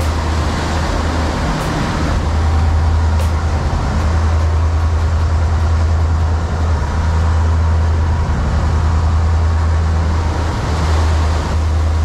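Sportfishing boat's engines running steadily under way: a loud, constant low drone, with the hiss of the wake and spray over it.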